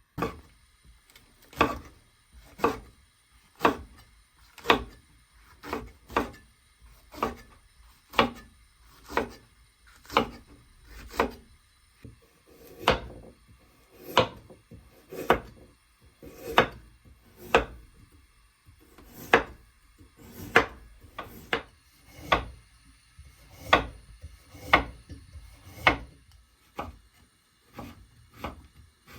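A steady series of short knocks or strokes, about one a second, with quiet between them.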